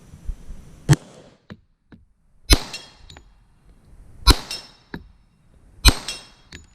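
Four 10 mm pistol shots fired at a steady pace, about one every 1.7 seconds. After the last three comes the brief high ring of a struck steel target, with light clinks between the shots.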